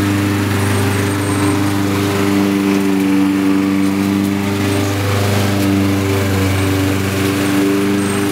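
Walk-behind lawn mower engine running at a steady speed as it is pushed across grass.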